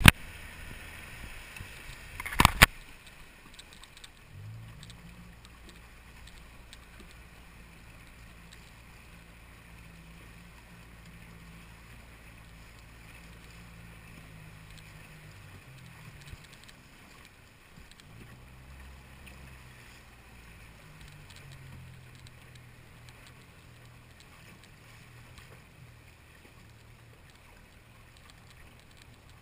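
Outboard motor of an inflatable boat running at low speed, a steady low hum that changes pitch a little partway through, over faint water noise. A single loud knock about two and a half seconds in.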